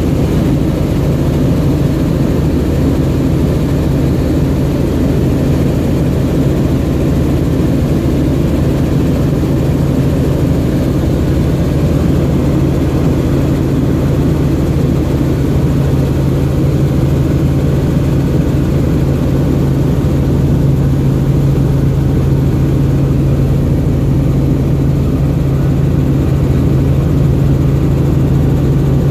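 Helicopter in flight, heard from inside the cabin: loud, steady engine and rotor noise with a strong low hum.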